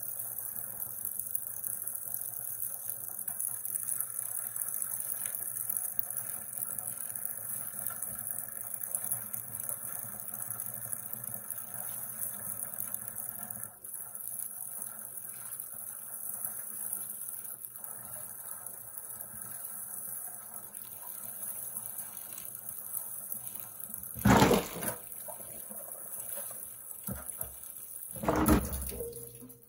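Tap water running steadily into a plastic bucket while clothes are rubbed and squeezed in soapy water by hand. Twice near the end, much louder sloshing of water as the plastic bucket is moved.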